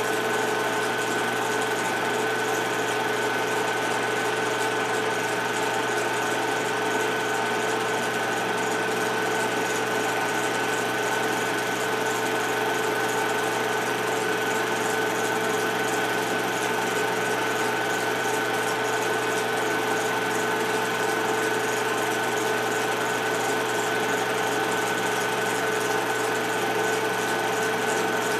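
Film projector running: a steady mechanical whir with a constant high hum.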